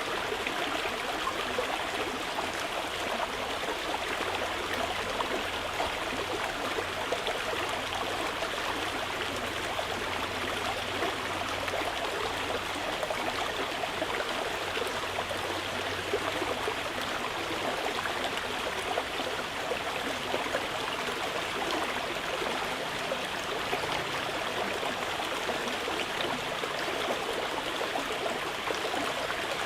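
Mountain river flowing over rocks, a steady even rushing of water that does not change.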